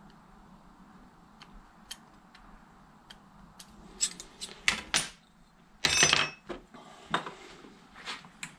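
Small steel hand tools and 2 mm steel bracket pieces handled on a workbench: a run of light metallic clicks and clinks, sparse at first and louder in the second half, with a short scrape about six seconds in.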